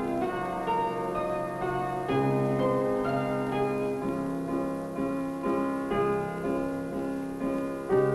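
Background music led by piano, with chords and notes changing steadily throughout.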